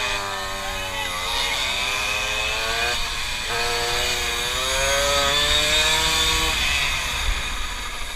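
Two-stroke Tomos moped engine heard from on board, revving hard with a pitch that climbs as it accelerates, drops about three and a half seconds in, climbs again and fades near the end. Wind rumbles on the microphone.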